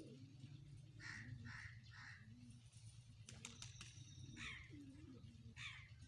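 Domestic pigeons cooing softly, with another bird's calls over them: three short calls about a second in and two falling calls near the end. A steady low hum runs underneath.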